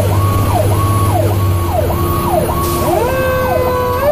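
Fire truck's electronic siren heard from inside the cab, cycling quickly up and down in pitch over the engine drone. About three seconds in, a second steady siren tone joins and starts rising in pitch near the end.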